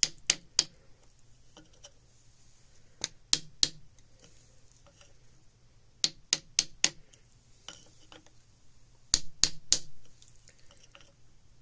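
Mallet tapping a scrap hardwood block against a Gew 98 rifle's barrel band, in quick groups of two to four sharp taps every few seconds, working the rusted band forward off the stock.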